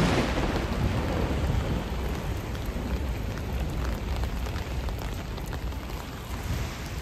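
Heavy rain pouring down on a street, with a low rumble underneath; loudest at the start and easing gradually.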